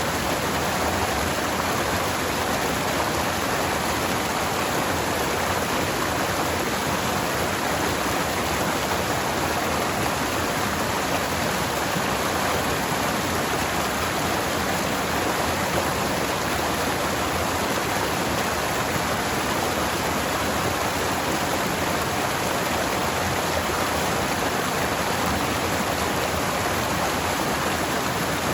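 Forest stream water flowing over rocks: a steady, even rush with no change.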